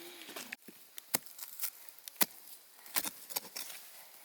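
Irregular chopping strikes: a handful of sharp knocks, the loudest about two seconds in, with smaller taps between them.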